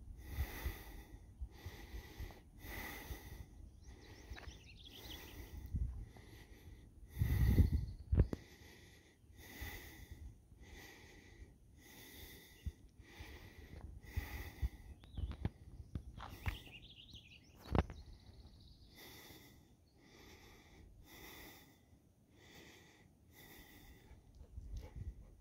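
A person breathing heavily close to the microphone, in an even rhythm of a breath a little under once a second. There is a low rumble of wind or handling about seven seconds in, and a couple of faint bird calls.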